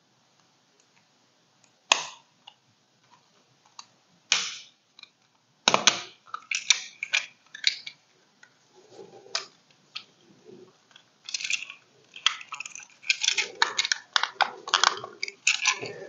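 Plastic housing tabs of a GE/Jasco Z-Wave wall switch clicking and snapping into place as the switch is pressed back together, with scattered handling clicks of the plastic and metal mounting strap. The sharp snaps start about two seconds in and come more thickly later.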